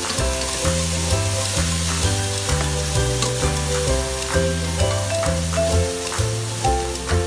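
Minced meat sizzling in a hot nonstick frying pan, stirred and scooped with a slotted spatula that taps and scrapes against the pan. Background music with a stepping bass line plays throughout.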